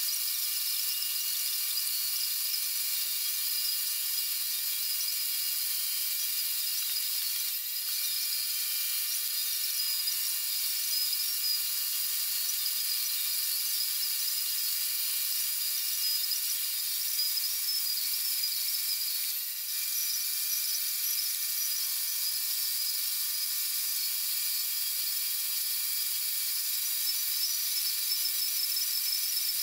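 Milling machine spindle whining steadily as a 90-degree double-angle cutter cuts spline grooves into a metal axle shaft held in an indexing head. There are two brief breaks, about 8 and 20 seconds in.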